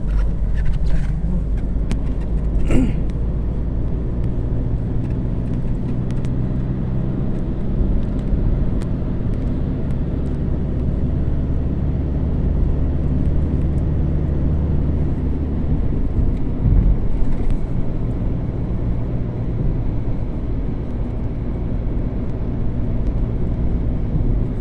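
An engine running steadily with a low rumble, like a motor vehicle heard at a constant speed, with a few faint clicks early on.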